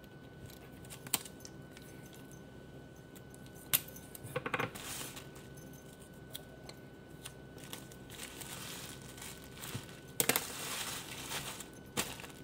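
Plastic bag crinkling and rustling as it is handled, in a few short spells, with several sharp clicks in between.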